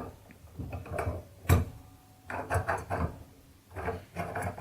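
A hand press for setting eyelets and grommets being worked, squeaking at its moving parts during several strokes. A sharp metal clack comes about one and a half seconds in. The squeak calls for a drop of oil.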